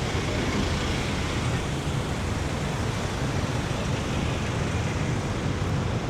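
Steady city street traffic noise from passing motor vehicles, with most of the sound low-pitched and no single event standing out.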